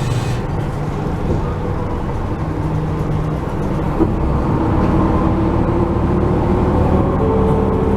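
Inside a city sightseeing bus under way: the engine running with steady road rumble, growing a little louder about halfway through, with a single click about four seconds in.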